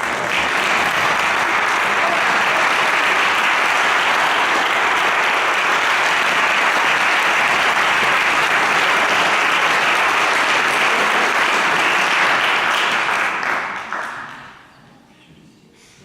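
Audience applauding loudly and steadily, then dying away about thirteen to fourteen seconds in.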